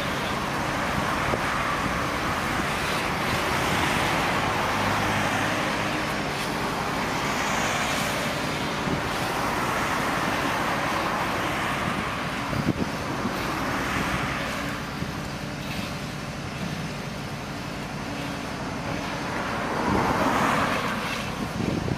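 Heavy engines running with a steady low hum, under a rushing noise that swells and fades every few seconds, with a few sharp knocks about halfway.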